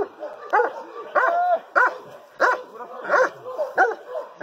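A dog barking repeatedly: short rising-and-falling barks, about one every two-thirds of a second.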